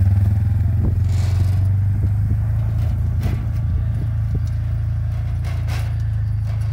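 Quad bike engine running steadily as it tows a loaded trailer over rough grass, with scattered knocks and rattles from the bouncing trailer. The sound eases slightly as the bike pulls away.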